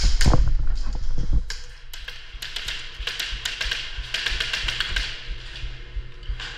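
Airsoft gunfire: rapid runs of sharp clicks and snaps from about a second and a half in, after low thumps in the first second and a half.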